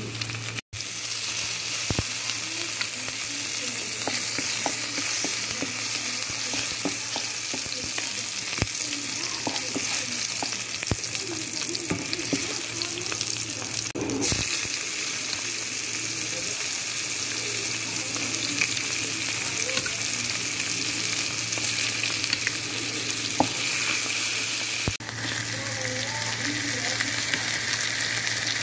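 Oil sizzling steadily in a frying pan as shredded chicken, then garlic and chopped vegetables fry, with a few sharp taps and scrapes of a wooden spatula against the pan.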